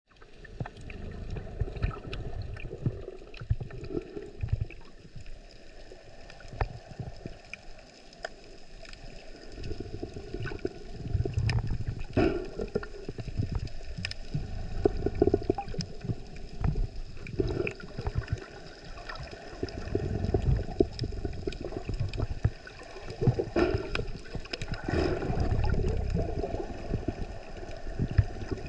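Water sloshing and gurgling in uneven surges, with low rumbling and scattered small clicks.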